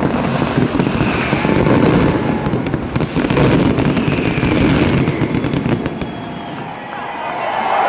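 Fireworks display: a rapid, dense barrage of aerial shells bursting and crackling, which thins out and quietens about six seconds in.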